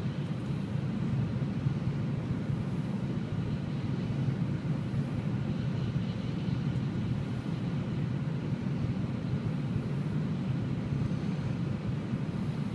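Cabin noise of a Shinkansen bullet train running at about 290 km/h: a steady low rumble with a lighter hiss over it.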